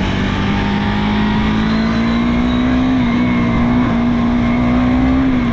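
KTM Duke 250 single-cylinder engine running while riding, its note slowly rising under throttle and dropping near the end as the throttle is eased, over a steady rush of wind noise. In it is the irritating noise the rider blames on a loose engine-mounting bolt, though a worn chain and sprocket set is also suspected.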